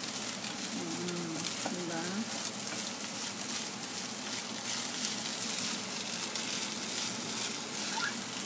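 Fried rice with chicken, egg and shiitake sizzling in a frying pan, stirred and turned with a spatula, giving a steady hiss with many small scraping ticks.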